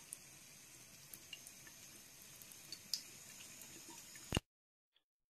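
Faint trickle of a thin stream of water running from a bathroom faucet into the sink, with scattered small wet ticks as a cat drinks from it. A sharp click about four seconds in, then the sound cuts off.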